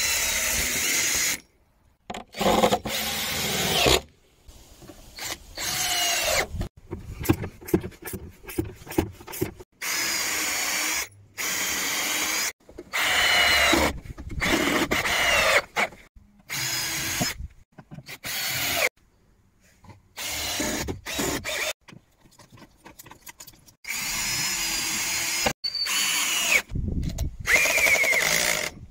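Cordless drill boring into timber and driving screws, in a run of short bursts that start and stop abruptly. The motor whine rises and falls in pitch with each burst, and there are stretches of clicking between them.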